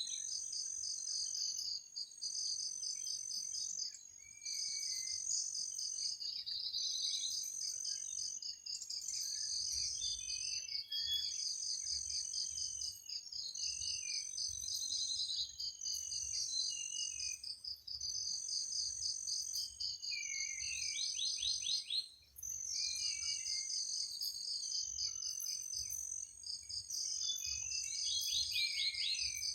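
Night insect chorus: crickets trilling in steady, evenly repeated pulses, with birds calling over them in short sliding chirps, and a quick run of notes twice.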